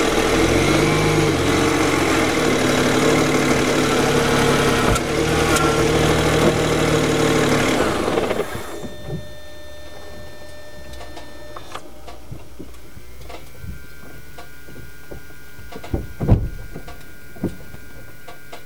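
Twin-turbo BMW engine running at low revs, heard close through a microphone at the engine, then switched off about eight seconds in. After that only a faint steady hum remains, with a few clicks near the end.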